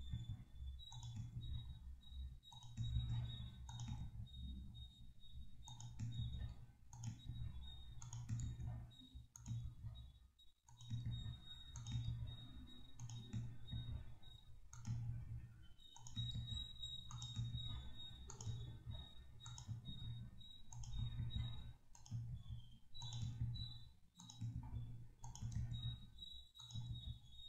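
Computer mouse and keyboard clicking in irregular runs while values are selected, copied and pasted.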